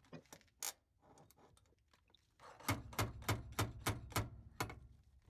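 Stud-welder dent repair on a steel rocker panel: a few light metal clicks, then a quick run of about seven sharp metal knocks, roughly three a second, as the welded studs are pulled and worked.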